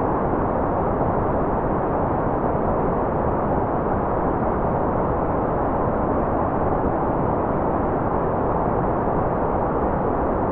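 Continuous white noise, even and unchanging, with a dull, muffled tone because its top end is rolled off.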